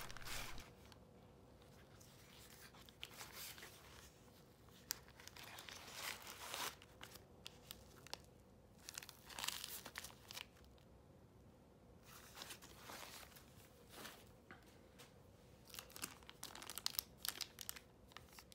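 Quiet, intermittent rustling and crinkling as a soft nylon camera case is handled and opened, with plastic packaging crinkling; the busiest handling comes near the end.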